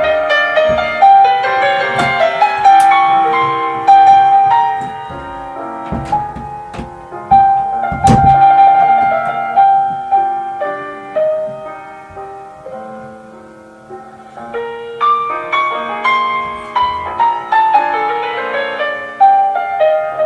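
Solo piano playing a slow, tender classical piece: a melody over chords, with notes that swell and fade.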